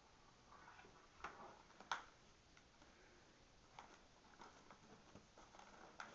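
Faint rustling and light knocks of a cat shifting about on cardboard cartons and paper inside a plastic recycling bin, with one sharper click about two seconds in.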